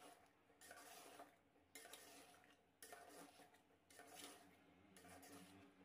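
Faint scraping of a metal spoon stirring thick mutton-and-potato masala in an aluminium pot, in strokes about a second apart.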